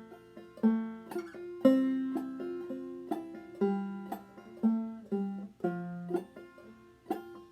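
Five-string banjo played clawhammer style in fDGCD tuning, in the key of F: plucked notes and brushed strums in a steady bum-diddy rhythm, about two main beats a second, each note ringing and fading.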